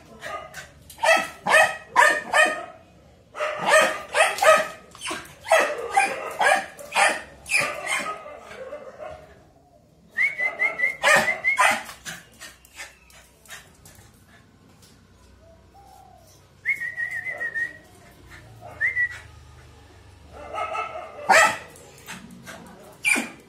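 Small dog, a Lhasa Apso, barking in quick runs of sharp barks with pauses between. Twice, about halfway through and again a few seconds later, a high, steady whistle-like tone sounds briefly.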